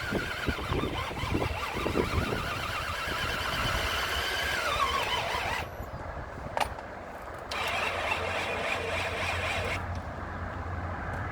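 Power drill boring into wood: a high motor whine that sags in pitch and stops about five seconds in, then runs again for about two seconds.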